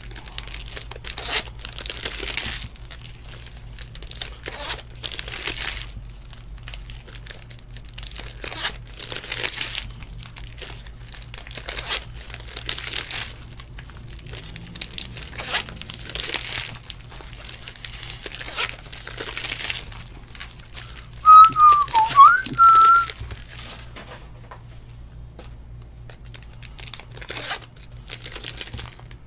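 Crinkling of a Topps card pack's wrapper being handled and opened, with cards shuffled through by hand. About two-thirds of the way through, a person whistles a few notes that dip and rise.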